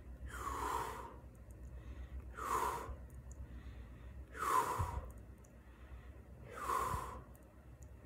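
A man breathing close to the microphone: four breaths, about two seconds apart.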